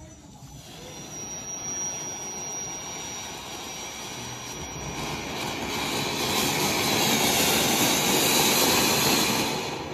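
Batibot Silver Fountain by E. Salonga, a ground firework fountain, spraying sparks with a steady rushing hiss that builds louder over several seconds, then fades near the end as it burns out.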